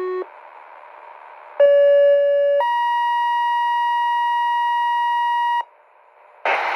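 Two-tone sequential pager tones from a Zetron Model 25 encoder sent over GMRS radio, typical of a Motorola Quik-Call II page. A lower tone cuts off just after the start, followed by a little radio hiss. Then one steady tone sounds for about a second and a higher one is held for about three seconds, and loud radio static cuts in near the end.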